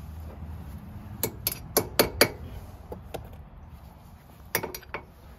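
Sharp metallic clinks of an Allen wrench on the rear differential's fill plug and housing: a quick run of about five, some four a second, a little over a second in, then a few scattered single clinks.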